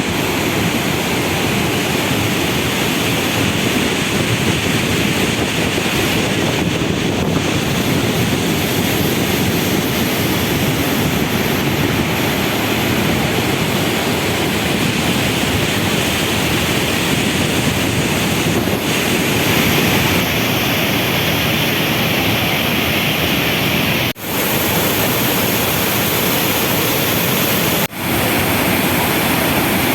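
Thundering roar of the Iguaçu Falls: a loud, steady rush of heavy falling water with no break in it, briefly cutting out twice near the end.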